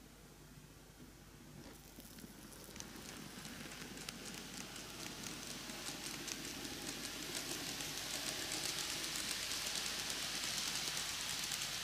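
N gauge model train (a 12-car Keikyu 2100 series set) running on its track: a rattling hiss of many fine clicks from the wheels on the rails, starting about two seconds in and growing steadily louder.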